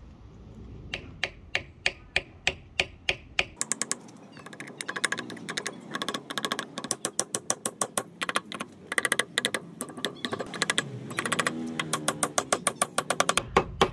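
A small hammer tapping thin wooden wedges down into the kerf of an axe handle seated in the axe eye. The strikes come about three a second at first, then in faster, lighter runs from about four seconds in.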